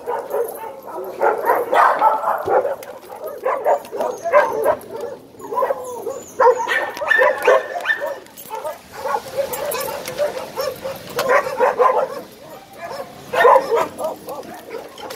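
Dogs barking and yipping over and over in short runs of barks, several calls overlapping at times.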